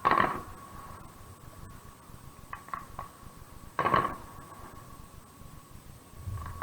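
Fireworks going off: two loud bangs about four seconds apart, the first right at the start, with a few smaller pops between them.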